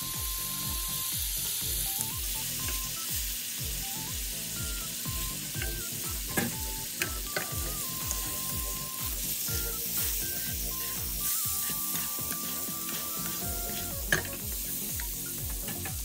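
Butter sizzling steadily in a frying pan around a steak as it is spoon-basted.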